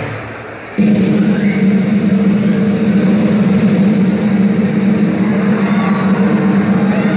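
Music fades out, then under a second in a loud, steady low drone starts abruptly and holds.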